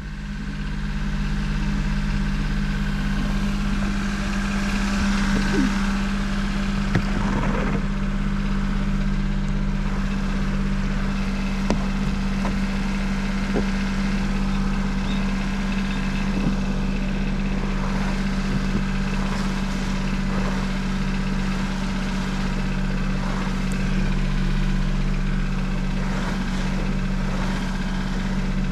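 Small car's engine idling steadily, left running to warm up in the snow, with a few light taps over the hum.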